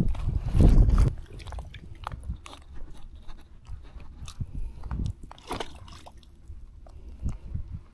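Close crackling, rustling and clicking as a landed trout is handled in a mesh landing net and the hook is worked free. There is a heavy low rumble for about a second near the start, then scattered small clicks.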